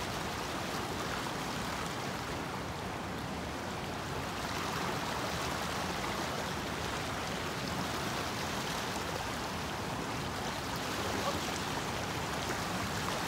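Stream water flowing in a steady, even rush.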